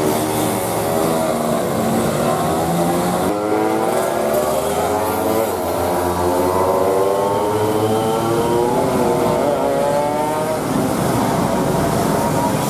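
Bus engines running under load, their pitch rising and falling several times as they rev and pass.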